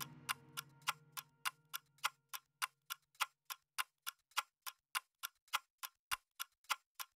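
Steady, clock-like ticking, about three to four sharp ticks a second, in a bare stretch of the background music. A faint low held note fades out under it over the first two or three seconds.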